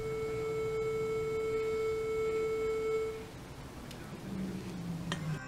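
Viking VK40 metal detector in its non-motion mode giving a steady continuous tone as it detects a soda-drink can held behind a stone wall. The tone cuts off about three seconds in, when the can is lifted away, and a fainter, lower tone follows near the end.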